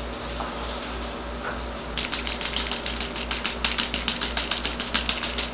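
A rapid, even clatter of sharp clicks, about eight a second, starting about two seconds in over a steady low hum.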